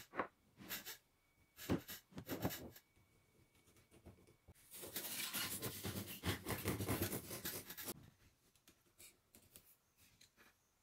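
A blue gelcoat-coated resin mould piece being handled and trimmed at a workbench with a small yellow-handled tool. There are a few light knocks and rustles, then from about five seconds in roughly three seconds of continuous rough scraping and crackling, followed by faint ticks.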